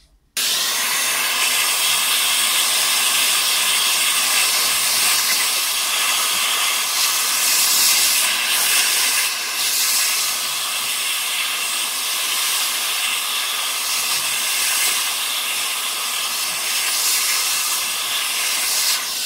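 Steady rush of air from a handheld cleaning nozzle held over a laptop's heatsink fins, blowing out dust. It starts abruptly just after the beginning and cuts off abruptly near the end, with a faint steady motor-like tone under the hiss.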